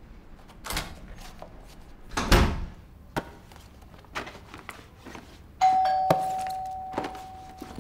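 Rustling and knocks of a backpack being handled, the loudest a short rustling thump about two seconds in. About two-thirds of the way through a doorbell chimes, one ringing tone that fades away slowly: a visitor at the door.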